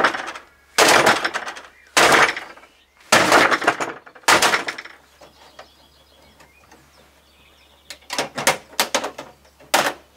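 Sledgehammer blows smashing the plastic casing of an Epson all-in-one printer: five heavy crunching impacts about a second apart. Near the end comes a rapid run of smaller cracks and snaps as the broken plastic is pried apart.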